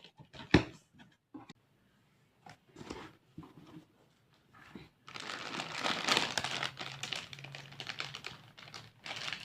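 A parcel being unpacked by hand: scattered knocks and taps against the box, then about four seconds of continuous rustling and crinkling of packaging.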